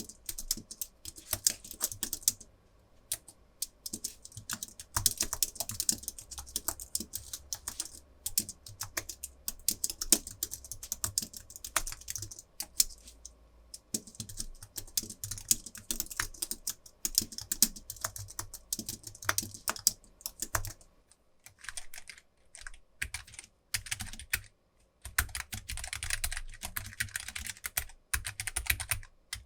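Fairly heavy typing on an Apple Magic Keyboard's scissor-switch keys, a dense run of quick clicks. About two-thirds of the way through, after a short pause, the typing moves to a Keychron K3 with low-profile optical red linear switches, whose keystrokes land with more of a low thud.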